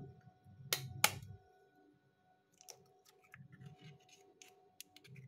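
A hen's egg knocked twice against the rim of a bowl to crack it: two sharp knocks close together, followed by faint small clicks and crackles of the shell being handled.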